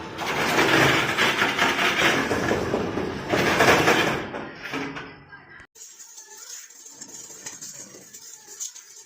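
Self-walking concrete mixer running with a loud, dense rattling clatter that fades after about four seconds; the sound then cuts off abruptly to a much quieter stretch with faint scattered clicks.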